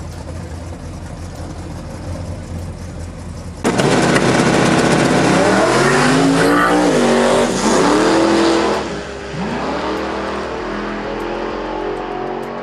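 Twin-turbo big-block V8 of a 1979 Chevy C10 drag truck running with a low, steady rumble. About four seconds in it revs hard and loud, the pitch rising and falling for several seconds, then drops back with one more rising rev.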